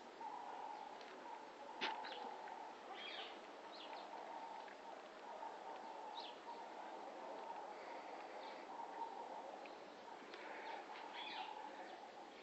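Birds chirping faintly over a steady background hum, with one sharp click about two seconds in.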